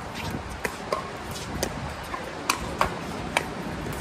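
Pickleball paddles striking the hard plastic ball in a rally: about six sharp pops at uneven intervals, the loudest in the second half.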